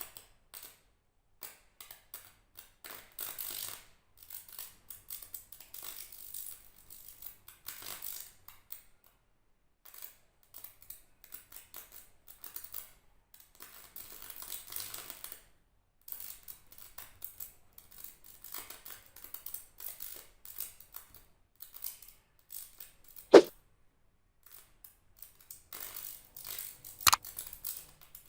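Homemade salt-water welder arcing on copper wire: irregular crackling and sputtering sparks with short sizzling bursts, and two sharp snaps late on.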